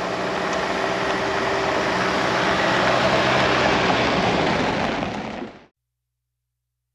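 A motor vehicle running steadily, engine hum under road noise, fading out near the end.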